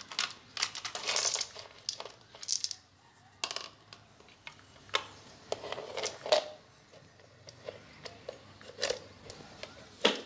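Fingernails picking nits out of hair strands at the scalp, heard close up as sharp, irregular clicks and crackles, some in quick clusters.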